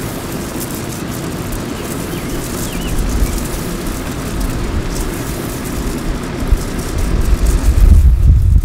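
Wind rumbling and buffeting on the microphone, growing gustier and louder near the end, with a few faint bird chirps.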